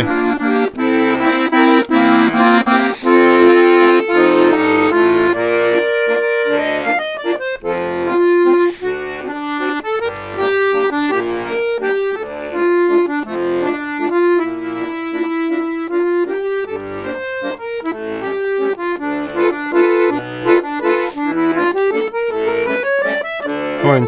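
Bayan (Russian button accordion) playing an improvised passage: full chords over the bass at first, then a single-note melody line over short bass notes, with a quick rising run near the end.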